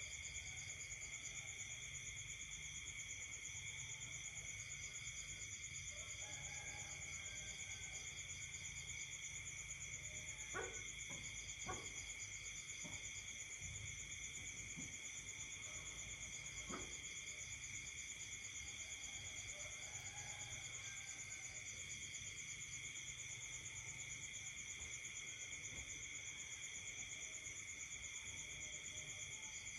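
Night chorus of crickets and other insects: several steady high-pitched trills, one of them pulsing, with faint frog calls underneath and a low hum. A few sharp clicks come in the middle, the loudest sounds.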